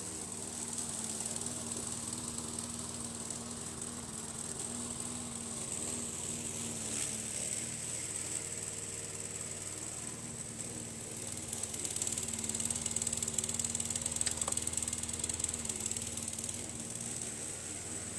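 Lawn mower running steadily, its motor hum wavering a little in pitch. A constant high insect trill runs underneath.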